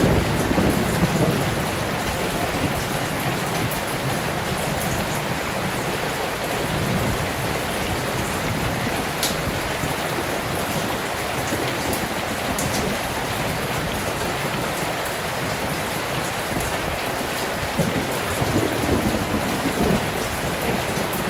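Steady heavy rain heard from indoors, with low swells of wind rising and falling now and then, strongest near the start and again near the end.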